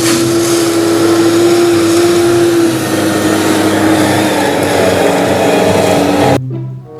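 A small motor running steadily with a loud rushing hiss and a steady whine that dips slightly in pitch after about three seconds, cutting off abruptly near the end.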